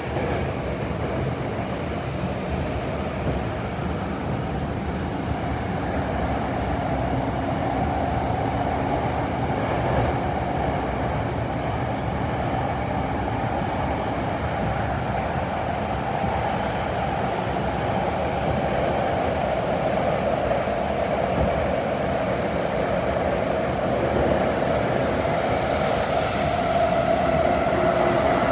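Tokyo Metro Hanzomon Line subway train running, heard from inside the passenger car: a steady rumble of wheels and running gear with a humming tone that swells and fades, growing a little louder near the end.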